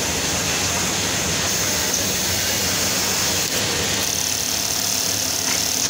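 Steady din of industrial sewing machines and their motors running on a garment factory floor, a constant whirring noise with a low hum.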